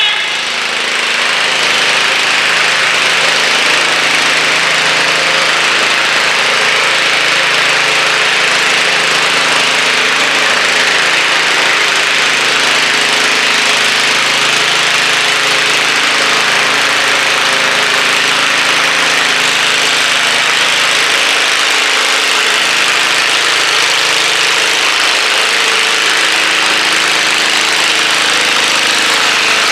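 John Deere garden tractor engine idling steadily at the end of its pull.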